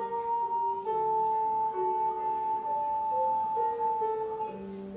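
Red-clay alto C ocarina (POPOLO Concerto) playing a slow melody and holding one long note for about three seconds, over a lower accompaniment whose notes change underneath; the phrase tails off near the end.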